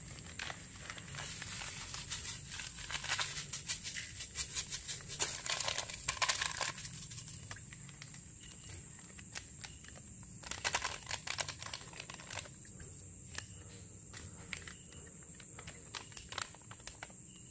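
Crinkling of a plastic seasoning packet being handled and shaken while salt and powdered seasoning are sprinkled over raw catfish pieces. The crackling comes in two spells of rapid fine crinkles, a long one near the start and a shorter one past the middle. A faint steady high whine runs underneath.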